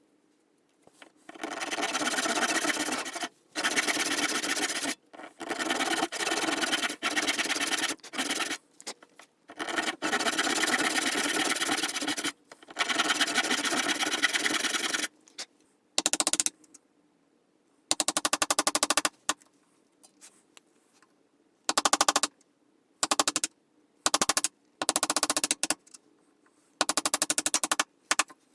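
A toothed hand tool cutting wood in repeated strokes, each stroke a fast rattle of teeth lasting a second or two. The strokes come in a long run at the start, then shorter and more spaced out.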